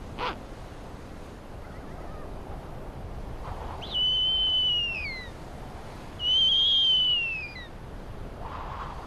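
Female snowy owl giving two long, high begging calls to the male, about two seconds apart. Each is a drawn-out, whistle-like scream held at one pitch that drops off at its end.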